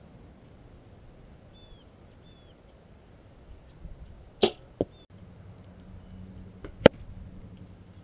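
Compound bow shooting: a sharp snap of the string release about halfway in, then a second knock a moment later. Two more sharp knocks follow about two seconds later, and the last is the loudest. Faint bird chirps come a couple of seconds in.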